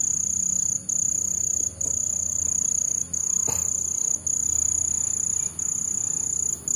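A cricket trilling loudly on one high, steady pitch, the trill breaking off for a moment about once a second.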